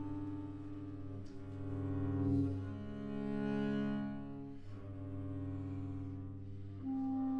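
Clarinet and cello duo playing contemporary chamber music, with the cello prominent. The two instruments hold long sustained notes that change every second or two.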